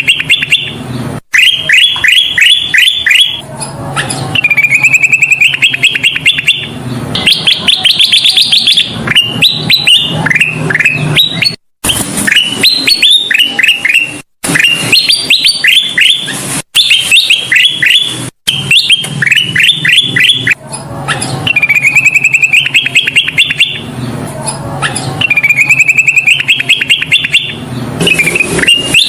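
Kutilang emas bulbul singing loudly in repeated phrases, each a quick run of rising chirping notes lasting about two seconds, with short pauses and a few abrupt dropouts between phrases; a bird-song lure recording.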